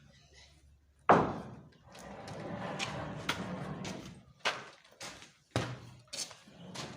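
Timber being handled and worked in roof carpentry: a loud sharp knock about a second in, a stretch of rough scraping noise, then several more irregular knocks.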